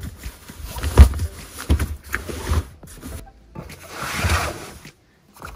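Folded, deflated air mattress being unravelled and spread out over a rubber cargo liner: rustling and rubbing of the mattress fabric, with a thump about a second in.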